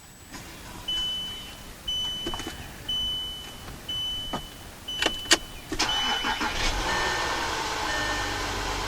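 The vehicle's warning chime beeps six times, about once a second. The 2012 VW Touareg TDI's 3.0-litre V6 turbodiesel then starts about six seconds in and settles into a steady idle, with two more short chimes.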